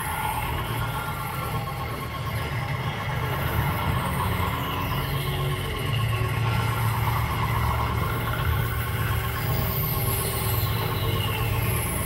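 Live experimental electronic music: a dense noise drone with a steady low rumble under squealing, whistling tones that sweep up and down in pitch, swelling slightly about halfway through.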